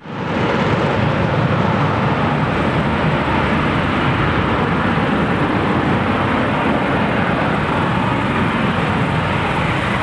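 F-35B fighter jet hovering, its engine and lift fan making a steady, loud jet noise that starts abruptly.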